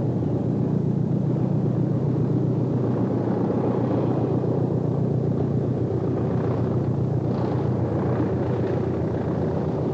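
Hastings diesel-electric multiple unit passing close by, its English Electric 4SRKT diesel engine running hard with a steady low rumble that eases a little near the end.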